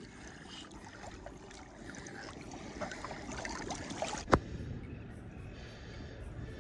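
Water splashing and sloshing at the surface close to the microphone as a snorkeler swims over shallow reef, with a sharp knock about four seconds in; after it the sound turns smoother and quieter.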